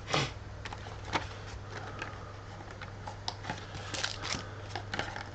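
Trading-card packs and their packaging being handled: scattered light rustles, crinkles and clicks, the loudest just after the start and around four seconds in, over a steady low hum.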